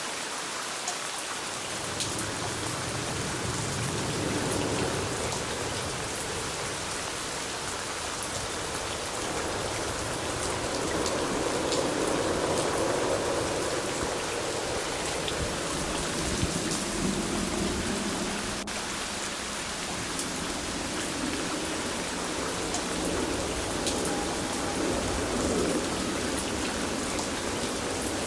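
Steady rain falling, with fine drop ticks throughout and low rumbling that swells and fades several times.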